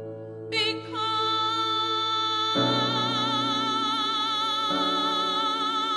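Background music: a slow ballad in which a singer holds one long note with vibrato over sustained chords that change twice.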